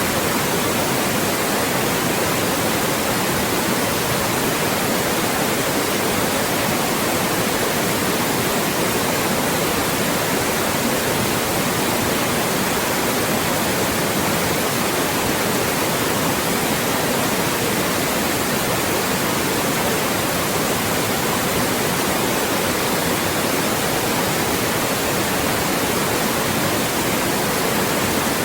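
Loud, steady synthetic white noise: an even, unbroken hiss spread across all pitches, meant to mask speech.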